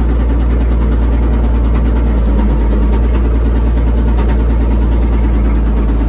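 Komatsu WA180 wheel loader's diesel engine running steadily as the machine is driven, heard loud from inside the cab. It is a low rumble with a fast, regular ticking over it: the engine has a rod knock.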